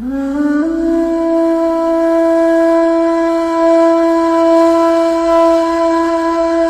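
Ney, the Turkish end-blown reed flute, playing a taksim: a note that climbs in small steps during the first second, then one long held tone with breath noise around it.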